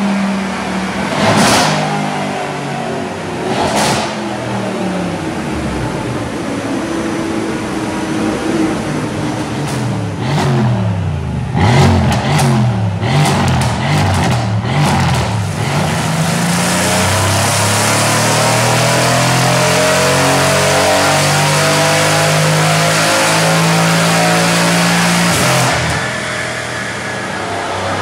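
Mercedes-AMG C63's twin-turbo V8 revved on a chassis dyno: quick throttle blips with sharp exhaust cracks, then a loud sustained full-throttle run of about nine seconds that ends with another crack.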